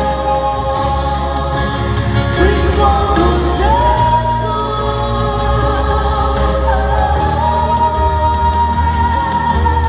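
A mixed vocal trio, two men and a woman, singing a Vietnamese gospel song into microphones over instrumental accompaniment. They hold long sustained notes, with the melody stepping up in pitch a few times.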